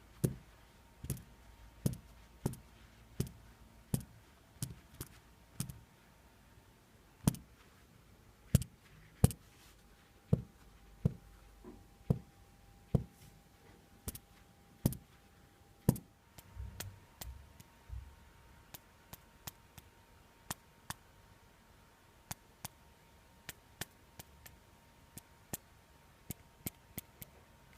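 Xiaomi Mi4C smartphone rattling in its upper body: a run of sharp separate clicks, about one a second and louder for the first half, then fainter and a little quicker. The owner takes it for a loose part inside the phone, which he suspects also distorts the caller's voice in the earpiece.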